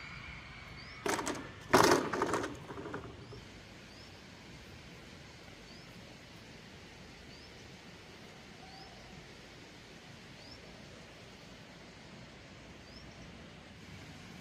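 A long, thick bamboo pole knocking down onto the ground: two hard hollow knocks about a second in, the second with a brief rattle. After that only steady quiet outdoor background, with faint high chirps repeating every second or so.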